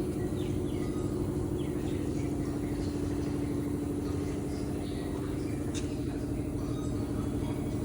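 A motor running steadily with an even hum and no change in speed, with faint bird chirps over it.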